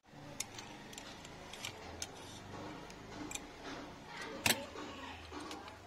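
Small clicks and taps of a phone motherboard being released from a metal PCB holder and handled, with one sharper knock about four and a half seconds in.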